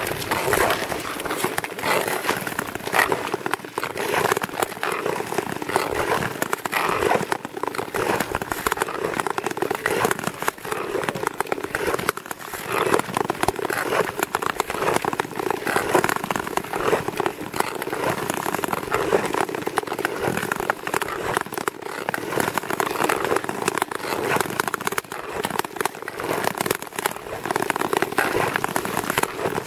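Nordic tour skate blades gliding and scraping over clear black lake ice: a continuous crackly hiss full of small clicks.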